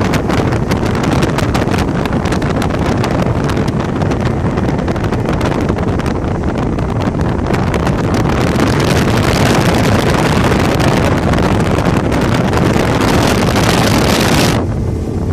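Heavy wind rushing over the microphone from a bass boat running at speed across open water, with the boat's motor and hull noise underneath.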